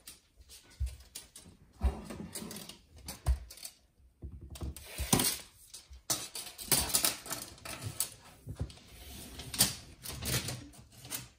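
Irregular clicks, taps and knocks with rustling in between, several a second, from hands handling and pressing things close to the microphone in a small room.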